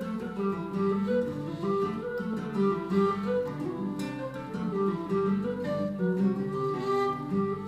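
Traditional Irish jig played live on a Susato whistle with acoustic guitar accompaniment, the guitar strumming prominently under a quick-moving melody.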